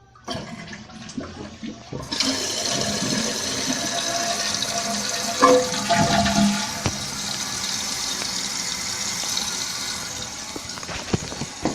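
A 2006 Glacier Bay toilet being flushed: a few faint clicks, then about two seconds in a steady rush of water as the tank empties into the bowl, easing slightly near the end.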